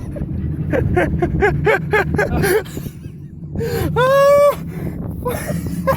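A man's voice in short breathless gasps for the first couple of seconds, then one long yell about four seconds in, over a low steady rumble.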